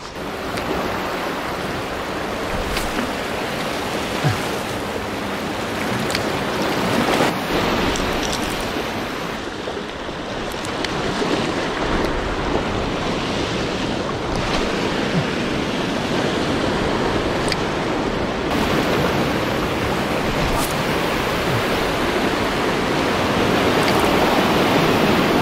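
Sea waves washing steadily against a rocky shore in a calm sea, with wind noise on the microphone.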